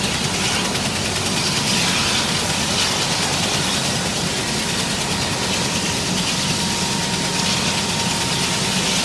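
Sikorsky S-92 helicopter running on the ground with its main rotor turning: a steady high turbine whine and hiss from its twin turboshaft engines over a low rotor hum, with a thin steady whistle in the middle.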